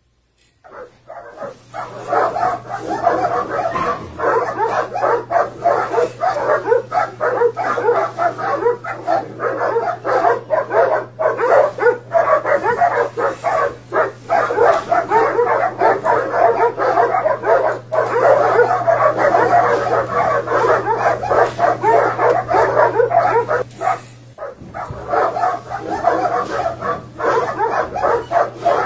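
Dogs barking, yipping and whining in a continuous loud din of animal noise, starting about a second in, over a steady low hum.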